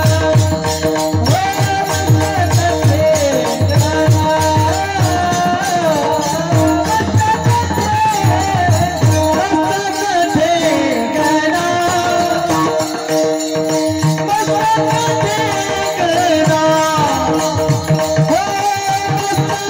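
Marathi devotional kirtan music: a melody sung in a high voice over steady low drum strokes and jingling hand percussion keeping a quick beat.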